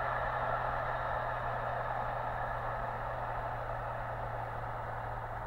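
LMS Royal Scot class steam locomotive 46100 and its train running at speed, heard from a distance as a steady rush with no separate exhaust beats. The sound slowly fades as the train draws away.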